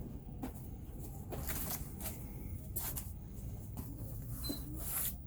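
Rustling and handling of large canvas lithograph prints being leafed through one after another: short rustles every second or so over a low steady hum.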